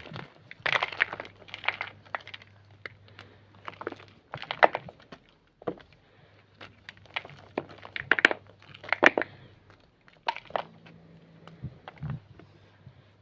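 Homemade grey gym chalk crunching, a run of irregular crunches and sharp cracks about once or twice a second.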